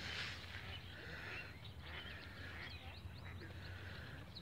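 Faint bird chirps, a string of short high calls mostly in the second half, over a low steady background hum.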